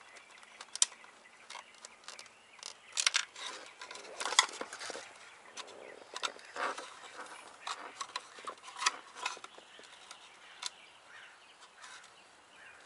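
Scattered light clicks and taps of small nuts being threaded by hand onto a gauge bracket's studs, with brief rattles as parts are handled.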